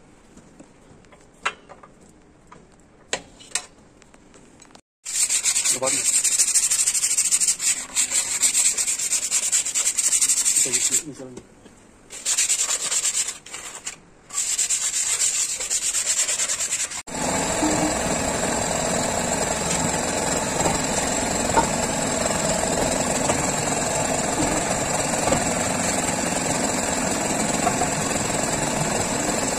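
A few light metal clinks, then loud rubbing and scrubbing of a gloved hand wiping a truck's brake wheel hub, in stop-start spells. From about halfway through, a steady rushing noise runs on without a break.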